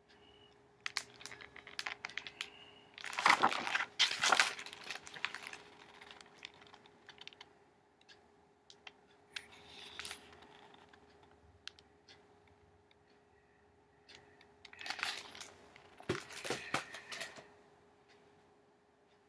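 A paper book being handled close to the microphone: its pages and cover rustle and click in two bouts, the first louder, over a faint steady hum.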